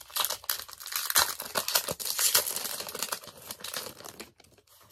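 Pokémon card booster pack wrapper being torn open and crinkled by hand: a dense crackling that dies away about four seconds in.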